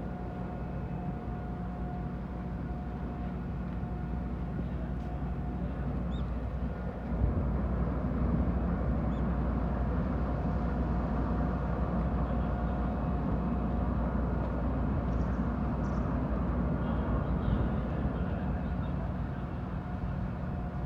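Large car ferry Kogane Maru's machinery droning steadily with a low hum and a few steady tones, the low rumble stepping up sharply about seven seconds in and holding as the ship gets under way.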